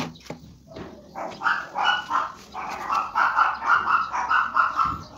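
A dog barking in a quick run of short, high barks, about three to four a second.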